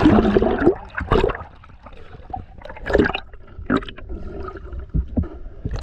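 River water heard through a submerged camera: a splash as it goes under, then muffled gurgling with a few dull knocks.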